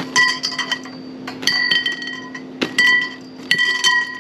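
Metal trampoline leg poles clinking together as they are handled and fitted, in four quick groups of clinks, each leaving a short bright metallic ring.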